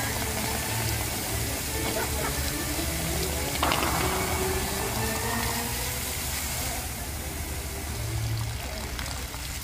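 Musical fountain's water jets hissing and splashing over music played for the light-and-music show. A jet surges about three and a half seconds in, and the spray thins out about seven seconds in as most jets drop.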